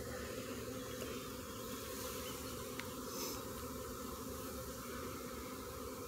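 A freshly caught honeybee swarm buzzing around and on its hive box: the steady, unbroken hum of many bees at once.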